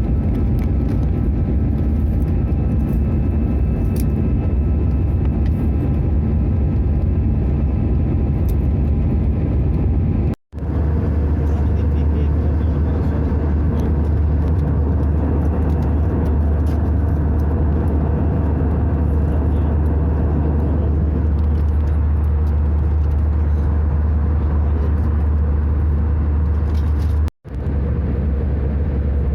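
Airbus A320 cabin noise in cruise flight: a steady engine and airflow drone with a strong low hum and a few faint steady tones. It breaks off abruptly twice, about ten seconds in and near the end.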